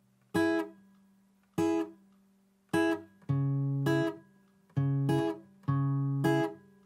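Acoustic guitar strumming chords in a steady rhythm, some strums cut short and others left ringing: the instrumental intro before the singing starts.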